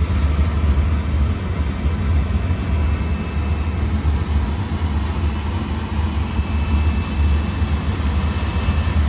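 Oil burner firing steadily: a continuous low rumble of the flame and burner blower that holds even throughout.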